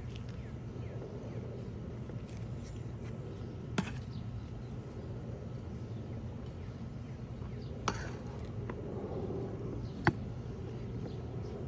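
Soil being dug through by hand in a bucket over a steady low background rumble, with three sharp clicks or knocks spread through it, the last the loudest.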